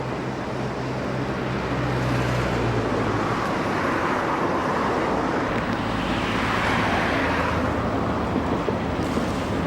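Steady engine noise: a low hum under a broad rushing sound that swells a little in the middle.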